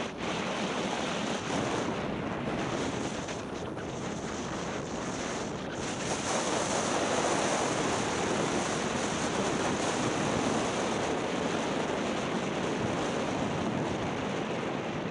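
Skis sliding on groomed snow, a steady rushing hiss mixed with wind on the microphone, getting louder about six seconds in.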